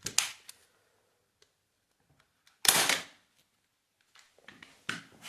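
A staple gun fired once, about two and a half seconds in, a single sharp snap driving a staple through the cloth into the cushion rail. Lighter knocks and clicks of handling come just at the start.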